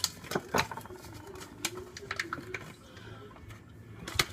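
Light clinks and taps of baking utensils against a mixing bowl, several in the first second and one more sharp tap near the end, with a faint wavering hum from a child's voice in the middle.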